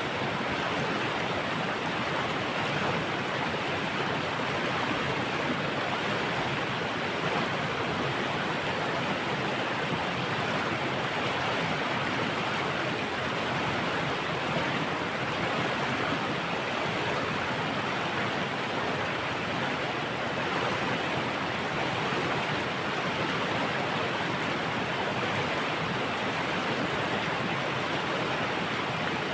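Flowing water rushing steadily and evenly, with no breaks or changes.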